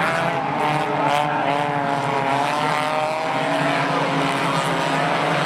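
A pack of four-cylinder stock-style race cars running together through a turn, their engines making many overlapping notes that rise and fall as drivers get on and off the throttle.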